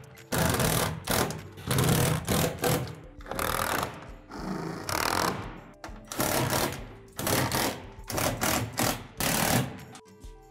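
Cordless power drill driving screws overhead into the shed's roof and truss, in about ten short bursts with brief pauses between, stopping shortly before the end.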